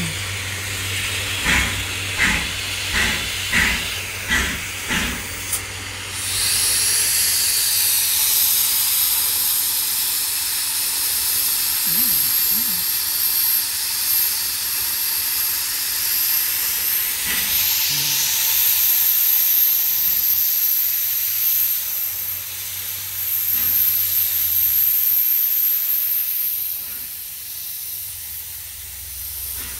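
Steam locomotive getting under way. Its exhaust chuffs come quicker and quicker over the first five seconds or so. A loud, steady steam hiss from the cylinders then starts abruptly and dies down near the end.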